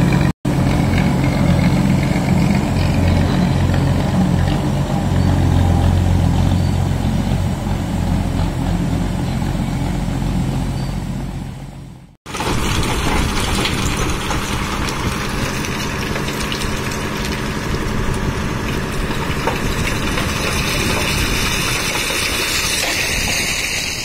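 Old three-wheel road roller's engine running steadily close by. After a cut about halfway through, the engine is fainter under a steady hiss.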